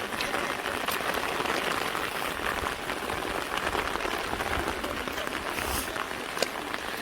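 Steady rush of water, an even hiss with no pauses.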